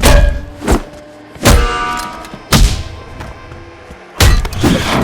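Sound-designed fight hits: five heavy punch and impact blows in quick succession, over music. The blow about a second and a half in leaves a short ringing tail.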